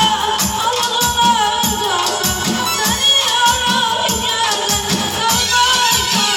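A boy singing a song into a microphone, with a Korg electronic keyboard playing the accompaniment and a steady drum and shaker beat, all coming through a loudspeaker.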